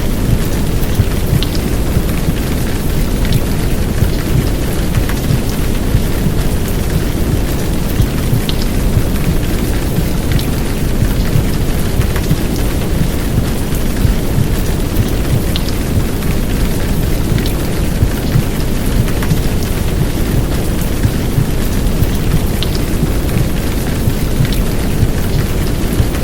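Heavy downpour rain over a dense, low rumbling womb-sound bed, steady throughout. Now and then a sharper drop tick sounds above it.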